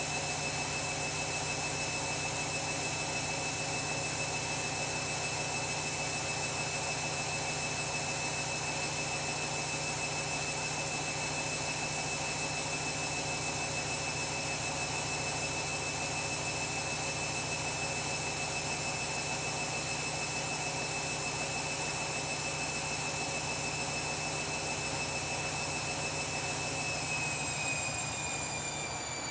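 Washing machine spinning: a steady high-pitched motor whine over the whirring drum, which starts to fall in pitch near the end as the spin begins to slow down.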